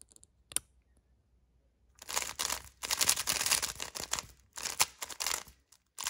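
Plastic Meilong M 3x3 speedcube, freshly lubed, being turned rapidly: a single click about half a second in, then from about two seconds a dense clatter of layer turns in runs with short pauses.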